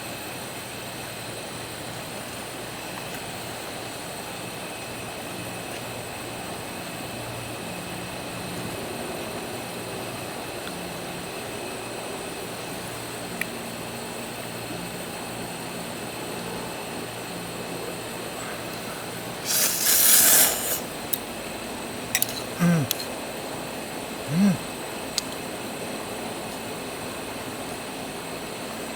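A person eating ramen: one loud slurp of noodles about two-thirds of the way through, followed by a few small clicks and two short low hums, over a steady background hiss.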